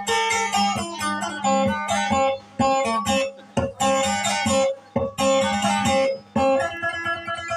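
Acoustic guitar picked in a melodic line, played in short phrases with brief pauses between them.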